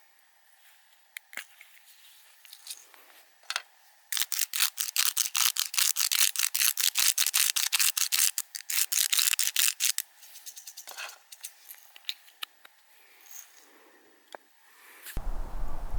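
A run of quick, even scraping strokes, about six a second, starting about four seconds in and lasting about six seconds, with a few single clicks around it; a louder rustling, rumbling noise starts near the end.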